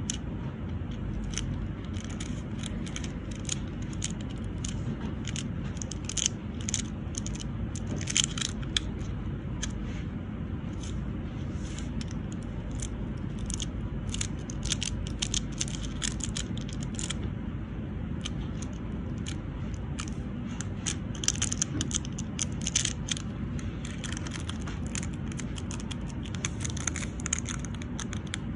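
Nail transfer foil crinkling and long acrylic nails clicking as the foil is pressed onto the nails and pulled away: a string of small, irregular clicks and crackles over a steady low hum.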